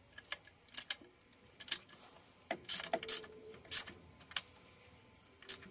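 Hand ratchet clicking irregularly as alternator mounting bolts are run in and snugged up, with a brief metallic ring about three seconds in.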